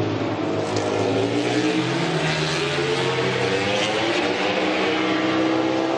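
A MotoGP racing motorcycle's four-cylinder engine at high revs; its pitch dips near the start, then climbs steadily as the bike accelerates.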